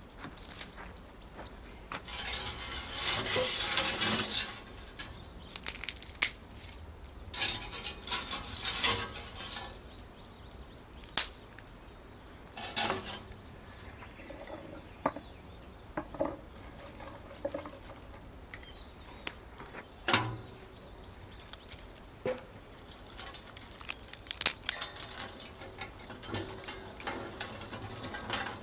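Food-preparation handling sounds: scattered clinks and taps of utensils against dishes and cookware at irregular intervals, with a few short rustling or scraping stretches.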